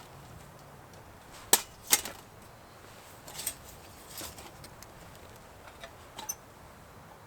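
A few sharp snaps or knocks: two loud ones about a second and a half and two seconds in, then several softer ones spread through the rest.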